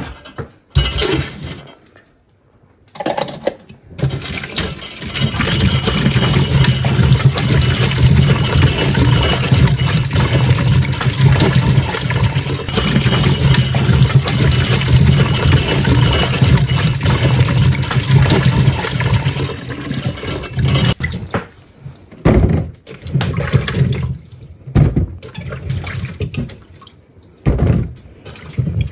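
Water running hard from a kitchen tap into a stainless steel pot, starting about four seconds in and stopping about 21 seconds in. Short splashes and knocks follow as the pot and peeled potatoes are handled at the sink.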